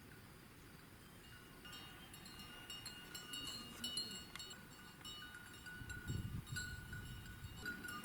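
Bells worn by grazing livestock, many small bells clinking and ringing irregularly, growing busier and louder from about two seconds in as the animals come closer.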